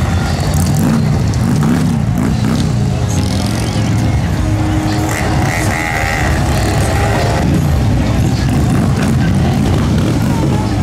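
Several motorcycle engines running and rumbling at low speed in slow, crowded street traffic, with crowd voices mixed in.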